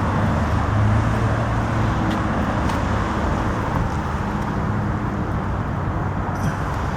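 A car engine running steadily at idle: a low, even hum over a wash of outdoor noise.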